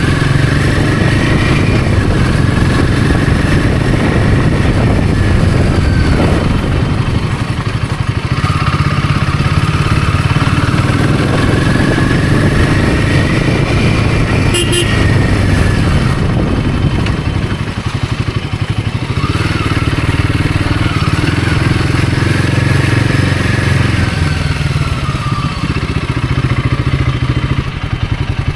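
Royal Enfield Himalayan 450's single-cylinder engine running under way, its note climbing and then falling away in three long pulls.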